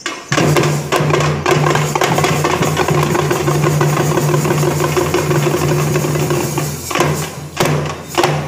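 Music with drumming and percussion, dense strokes that stop about seven seconds in, followed by a couple of separate strikes.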